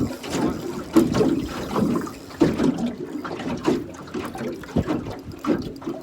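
Water lapping and slapping against the hull of a small aluminium boat in uneven splashes.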